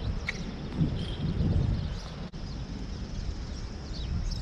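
Outdoor ambience: wind rumbling on the microphone, swelling about a second in, with birds chirping. There is a single light knock near the start.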